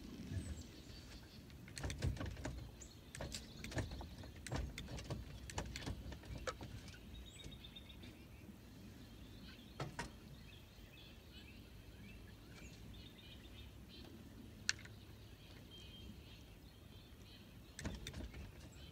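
Scattered knocks and clicks of an angler handling gear and moving about on a fishing boat's deck, in a cluster over a few seconds, then a single sharp click and another cluster near the end. Faint bird chirps come and go over a quiet background.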